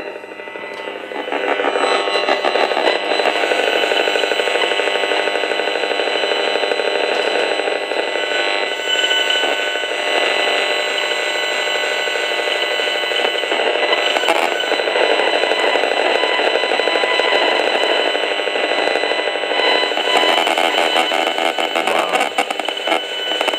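Gigahertz Solutions HF35C RF meter's built-in loudspeaker playing the radio-frequency signal it picks up as sound: a loud, dense, rapid buzzing chatter that swells in about a second in. It is the audible sign of the RF field being measured.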